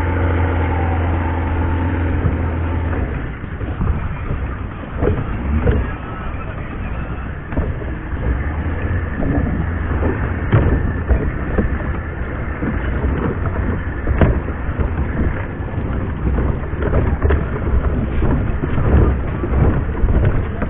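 A boat engine's steady low hum that cuts off about three seconds in, followed by wind noise on the microphone and scattered irregular knocks of footsteps on a plastic floating pontoon jetty.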